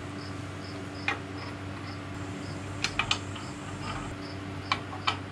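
A few sharp, light clicks as hydraulic quick couplers and their plastic dust caps are handled and fitted onto the threaded fittings by hand. Under them runs a steady low hum, with a cricket chirping about twice a second.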